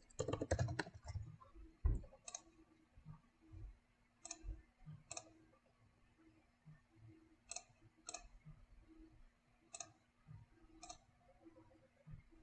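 Computer keyboard typing for about a second, then single mouse clicks every second or two, about seven in all, with a faint steady hum underneath.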